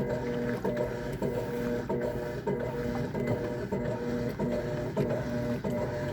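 Electrolux LTC10 top-loading washing machine running its agitator: a motor hum that stops and starts in an even back-and-forth rhythm, about one and a half times a second.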